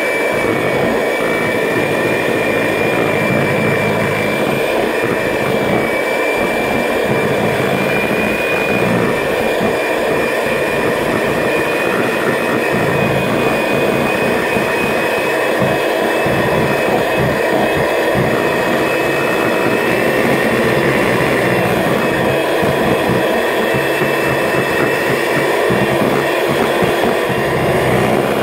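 Electric hand mixer running steadily with a high motor whine, its beaters whisking butter and cream cheese in a plastic mixing bowl.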